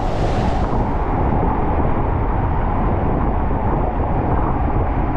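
Steady rushing of water and air as a single-rider inner tube slides fast down a water slide, with a brighter hiss of spray in the first second.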